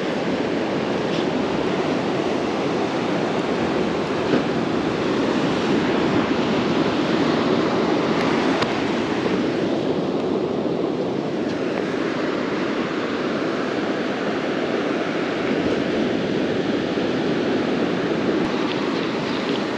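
Ocean surf breaking and washing up the beach: a steady, even rush of noise.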